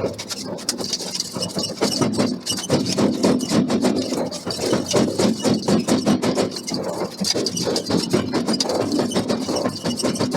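Forge-shop machinery running, a continuous mechanical clatter of dense, irregular knocks and rattles with a faint squeal.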